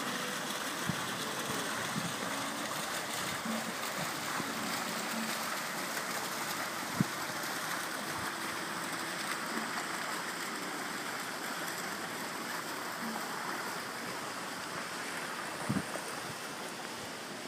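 Steady splashing of water from an outdoor fountain into its stone basin, growing a little fainter near the end, with a couple of brief knocks.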